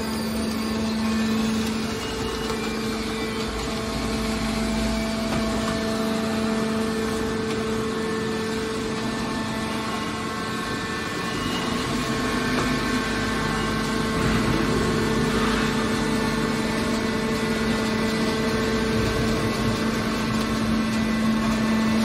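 Hydraulic scrap metal shear baler's power unit running, a steady machine hum with no change in pitch.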